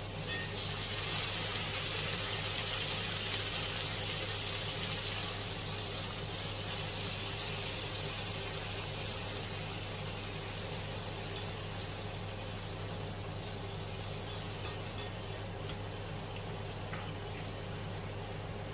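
Water poured into a hot frying pan of stir-fried vegetables, hissing and sizzling loudly for the first five seconds or so, then settling into a quieter steady simmer.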